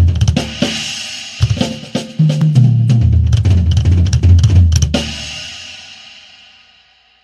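Acoustic drum kit with Sabian cymbals played along to the recorded song, with low held notes underneath. The part closes on a final hit about five seconds in, and the cymbals ring on and fade away.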